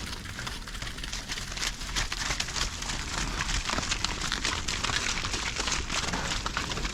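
Cows grazing close by, tearing and chewing fresh pasture grass: a dense run of crisp crackling and ripping, a little louder from about two seconds in.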